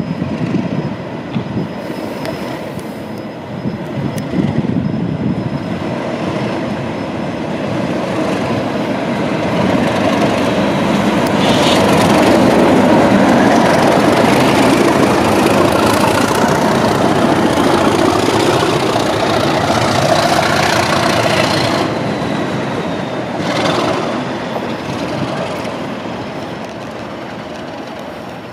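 Two Class 37 diesel locomotives, each with an English Electric V12 engine, running past close by with their engines working. The sound builds to a peak about halfway through and then fades as they go by.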